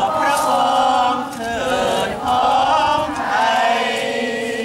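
A group of people singing together in unison, holding long notes.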